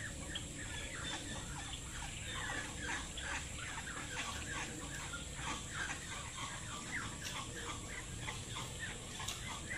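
Chickens clucking in a rapid run of short clucks, several a second.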